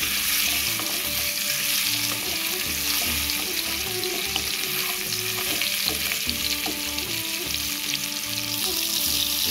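Whole boiled small potatoes sizzling as they fry in hot oil in a kadai, turned and stirred with a wooden spatula.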